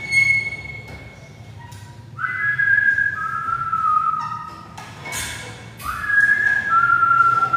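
Whistling: a short high whistled note at the start, then two similar phrases, each sliding up to a high note and dropping to a lower held note.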